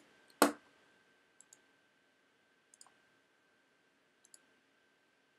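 Computer clicks: one sharp click about half a second in, then three faint clicks spaced about a second and a half apart.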